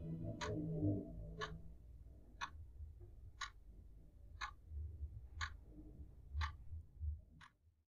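Clock ticking steadily once a second, eight ticks, over a low rumble; background music fades out in the first second.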